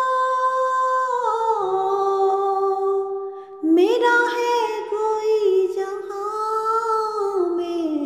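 A woman singing an Urdu naat unaccompanied, drawing out long wordless notes that step down in pitch. About three and a half seconds in she breaks off briefly, then swells into a new held phrase that slowly sinks.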